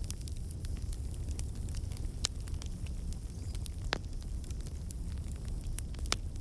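Fire in a fireplace crackling with many small clicks over a steady low rumble, and three louder pops about two, four and six seconds in.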